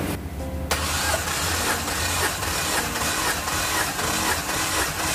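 Car engine turned over on its starter motor without firing: an even, rhythmic chugging that starts abruptly about a second in. This is the cranking of a compression test, with a gauge screwed into cylinder 3's spark plug hole.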